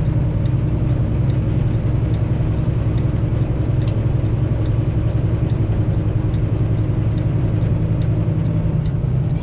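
Semi truck's diesel engine running at a steady drone, heard from inside the cab, with the transmission held in manual seventh gear for a mountain descent.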